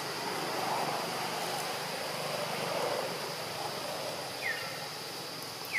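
Outdoor ambience with a steady high insect drone. Two short, high, falling chirps come near the end.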